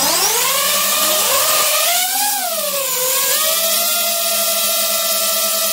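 DJI FPV drone's motors and propellers spinning up and lifting off, a whine rising in pitch over the first two seconds, dipping briefly about three seconds in, then settling into a steady hover whir. It is heard close up from a camera mounted on the drone itself.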